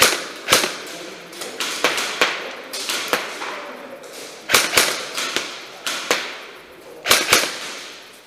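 Airsoft guns firing single shots: about fifteen sharp cracks at irregular spacing, some in quick pairs, each with a short echoing tail. The loudest come at the very start, about four and a half seconds in, and about seven seconds in.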